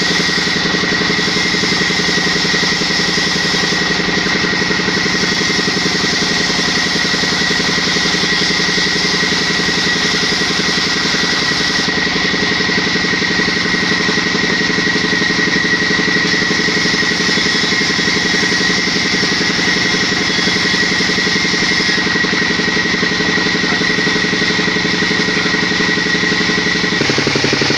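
An engine running steadily at a constant speed with an even, unchanging note, in the manner of a motorcycle or similar small engine; the sound shifts slightly near the end.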